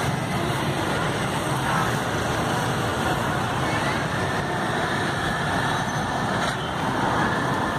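Street traffic noise, mostly motorbikes with some cars running past. A motorbike passes partway through.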